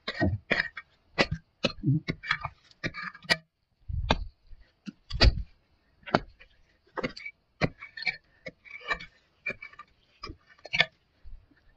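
Hoe chopping into hard, dry, cloddy soil while digging out a bamboo whip shoot: a run of irregular knocks and scrapes, with two heavier thuds about four and five seconds in.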